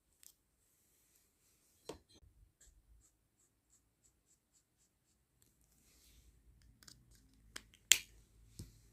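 Faint scratching and clicking, with a run of light ticks, about three a second, in the middle and one sharp, loud click about eight seconds in.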